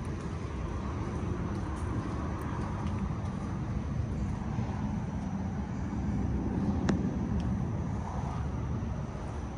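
Steady low outdoor rumble with no engine note, and a single sharp click about seven seconds in.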